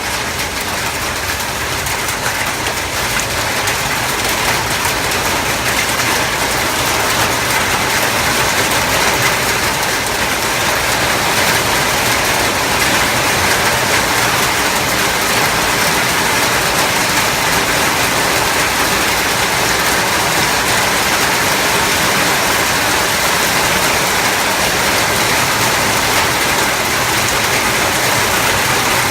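Hailstones pelting down in a sudden hail storm, a dense steady clatter of countless small impacts. It grows a little louder over the first few seconds.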